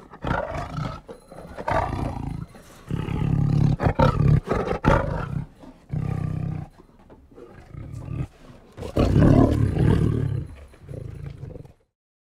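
A big cat, a tiger, roaring and growling in a string of about seven rough bouts. It cuts off abruptly near the end.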